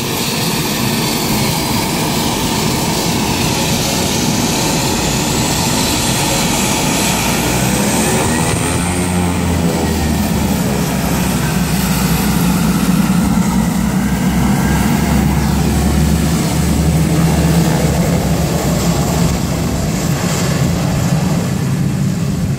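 Twin turboprop engines of a Beechcraft 1900D airliner running on the ground, a steady loud propeller drone with a high turbine whine that glides in pitch. The low drone grows stronger about halfway through as power comes up for taxiing.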